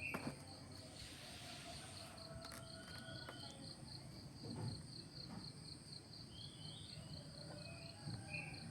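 Insects chirping steadily, a high pulsing trill at about six pulses a second over a continuous high whine, with a few short faint calls and a click near the start.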